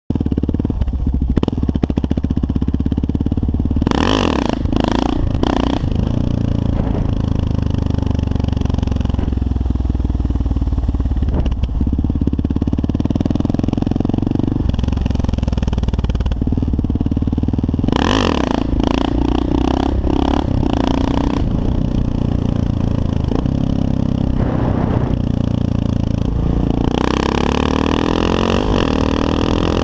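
Kawasaki KLR650 single-cylinder engine running under way, heard from the rider's helmet, with the revs climbing and falling in the last few seconds. Twice a rush of noise rises over the engine for a second or two.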